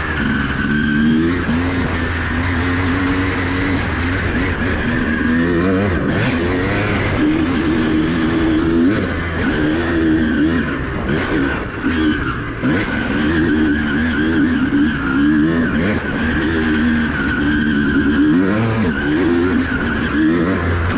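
Honda CR250R two-stroke single-cylinder dirt bike engine being ridden hard, revving up and dropping back over and over as the throttle is worked and the gears change.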